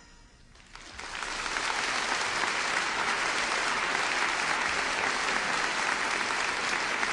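Audience applause that starts about a second in, after a brief hush, and keeps going steadily.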